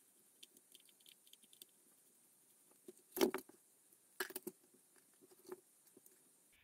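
Scattered light clicks and knocks of small plastic shaver parts being handled and pulled apart by hand, with two louder knocks about three and four seconds in.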